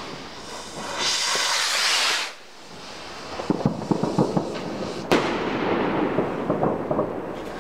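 Firework rocket: a loud rushing hiss for about a second, then scattered crackles and pops, with a sharp bang about five seconds in as the rocket bursts into stars, followed by more crackling.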